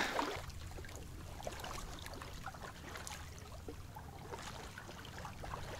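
Faint water lapping and trickling around a kayak at a stony lake shore, with many small scattered clicks.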